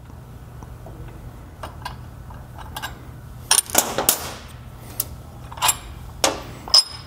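Scattered metal clicks and clanks as a clutch spring compressor is cranked back counterclockwise to relieve the spring pressure on a Polaris RZR XP Turbo primary clutch, and its parts are handled. There is a louder clatter about halfway through and a short ringing clink near the end, over a steady low hum.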